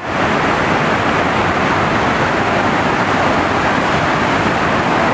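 Devi's Fall waterfall: a river plunging into its rock gorge, making a loud, steady rush of water that comes up within a moment at the start and then holds even.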